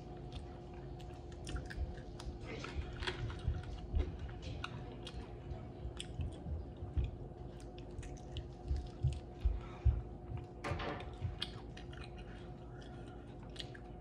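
Close-up chewing and biting of a sauce-coated fried chicken wing, with irregular wet mouth clicks. A faint steady hum runs underneath.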